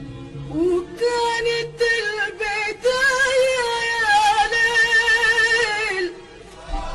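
A woman singing an Arabic song with an orchestra: about a second in she starts a long ornamented vocal phrase with short breaks, then held notes with a wavering vibrato, stopping shortly before the end.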